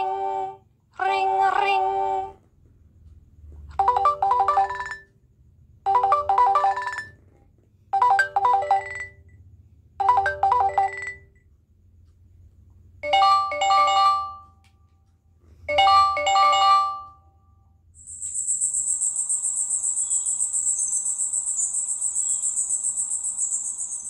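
Pixel phone ringtones previewed one after another through the phone's speaker: a short bright melodic phrase repeating about every two seconds, then a different phrase played twice. Near the end, a continuous high, rapidly pulsing electronic trill like a telephone bell.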